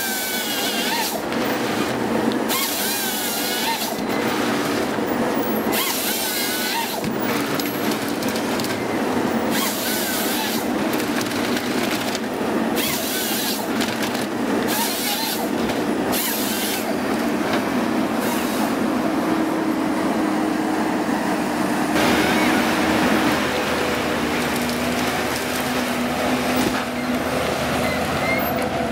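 Forestry harvester working: its diesel engine and hydraulics run steadily underneath. Over the first ten seconds or so, the harvester head's chain saw cuts through the stem in short, repeated bursts as the tree is processed into logs.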